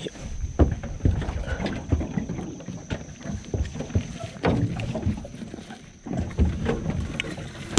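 Irregular knocks and thumps on an aluminium boat as a person shifts about in it.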